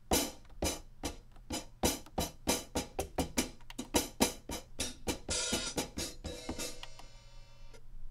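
Hi-hat one-shot samples from a boom bap drum kit played one after another: short, crisp hits about three to four a second, then a longer ringing hi-hat hit for about two seconds that cuts off near the end.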